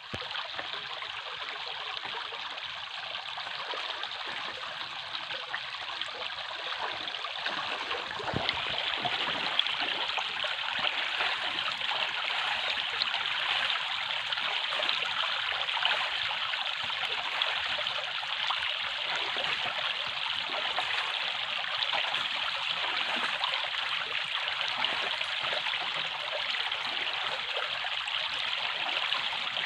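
Running water, a steady splashing, trickling flow like a stream, becoming a little louder after a brief knock about eight seconds in.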